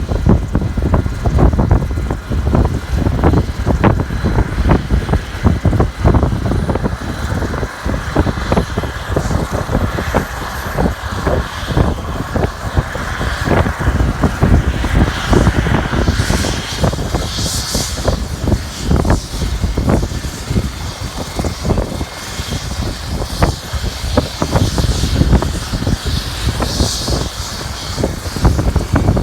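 Air-ambulance helicopter running at takeoff power: heavy low rotor rumble with a faint steady turbine whine above it. Gusting wind buffets the microphone throughout.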